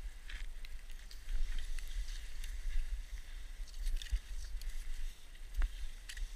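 Cross-country skis swishing and crunching through fresh snow, with short scattered clicks of poles and bindings, over a low rumble on the microphone.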